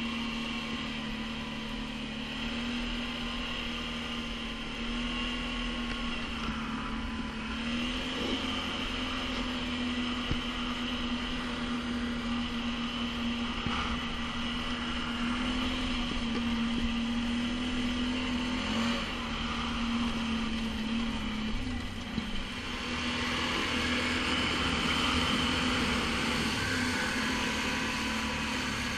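ATV engine running steadily under way. Its pitch shifts slightly a few times with the throttle, dips briefly near the end, then runs a little louder.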